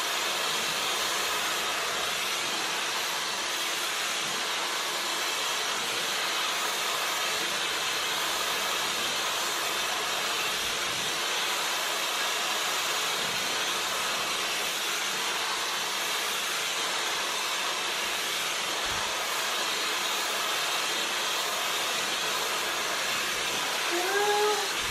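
Dyson Supersonic hair dryer with its wide-tooth comb attachment running steadily on a high, even airflow hiss while it is pulled through hair. A short vocal sound comes near the end.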